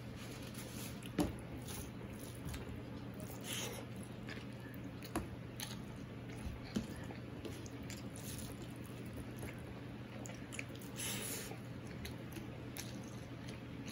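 A hand mixing rice and curry with the fingers on a stainless-steel plate, squishing and scraping, with a few sharp clicks, the loudest about a second in. Chewing between mouthfuls, over a steady low hum.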